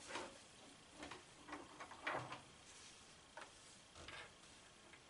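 A handful of faint, irregular clicks and light taps from small parts being handled on a workbench, the loudest about two seconds in.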